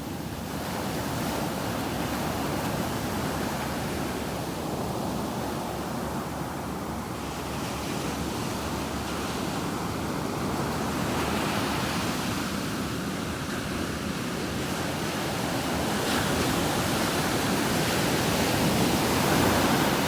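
Sea waves breaking on a beach: a continuous surf wash that swells and is loudest near the end.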